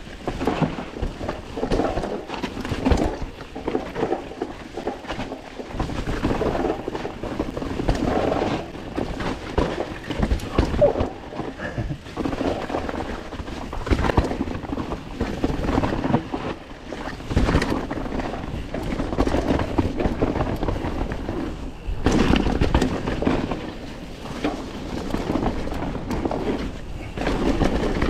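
Mountain bike being ridden down a dirt jump trail: steady rumble of tyres on dirt and rattling from the bike, broken by irregular knocks and thuds as it lands jumps.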